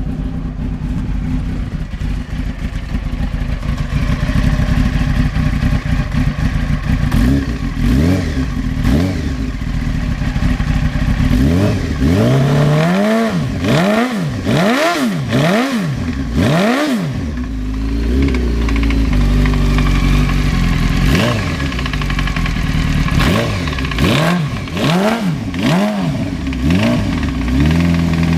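1993 Honda CBR900RR inline-four engine idling and being blipped: a run of four quick revs in the middle and another three or four near the end. A knock in the engine, which began after a hard burnout, is the fault being shown.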